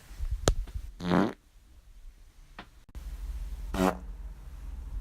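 Two short, buzzy farts, one about a second in and another near four seconds, with a couple of faint clicks between them.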